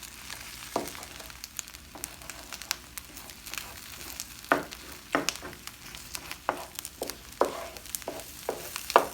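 Eggs sizzling in a hot skillet as a spatula scrambles them, with a steady frying hiss and a dozen or so irregular sharp scrapes and taps of the spatula against the pan.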